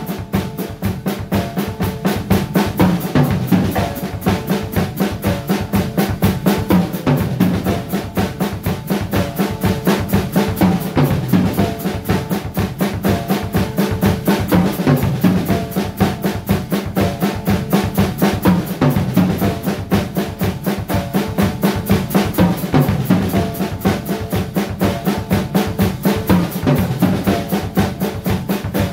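Drum kit played in a fast, steady, unbroken pattern of strokes on the drums and cymbals.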